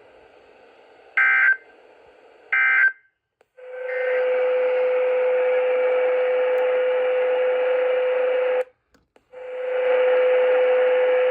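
NOAA Weather Radio SAME end-of-message data bursts: two short, shrill digital warbles about a second apart, which close the weekly tone-alert test. The receiver then carries a loud steady hiss with a constant low hum tone, which cuts out briefly about nine seconds in and returns.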